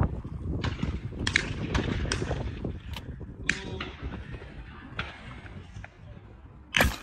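Wind rumbling on the microphone, with a few light clicks and taps. Near the end comes one sharp, loud bang, typical of a shotgun shot.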